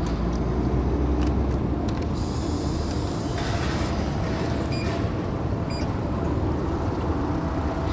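Steady low rumble of passing road traffic, with a few faint clicks about five and six seconds in.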